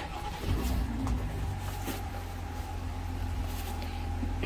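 Jeep Gladiator's engine idling steadily: a low, even hum with a faint steady whine above it.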